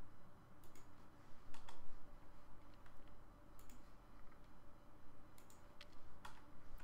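A computer mouse clicking a few times, mostly in quick pairs, over a faint low hum.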